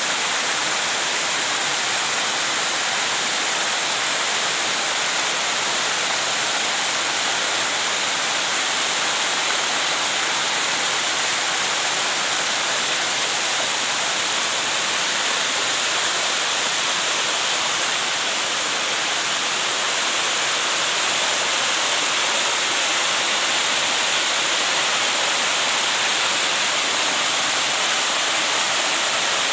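Small waterfall cascading in thin streams down a rocky cliff face: a steady, even rush of falling water.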